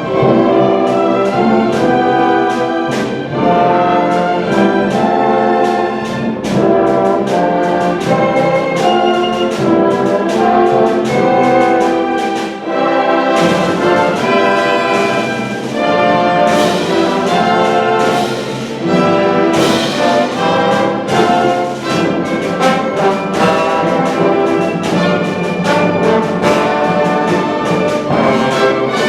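Symphony orchestra playing an arrangement of Hanukkah songs, with the brass section prominent. Frequent percussion strikes run through it, and there are several cymbal-like splashes in the middle stretch.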